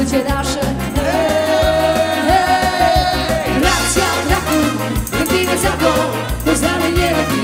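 Live dance band playing an upbeat song: keyboard, guitar and a singer over a steady beat, with one long held note a second or so in.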